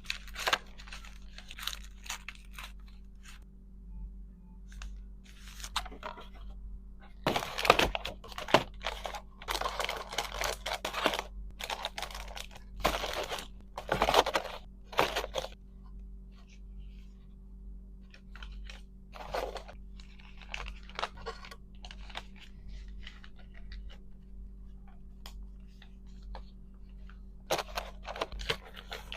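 Hands handling packaging: scattered taps and clicks, with bursts of crinkling and tearing that are busiest through the middle, over a faint steady hum.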